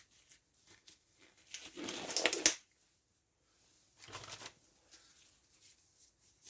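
Clicks and short rattling handling noises as the guide bar and chain are taken off a Stihl MS170 chainsaw, loudest about two seconds in, with a smaller burst a little after four seconds.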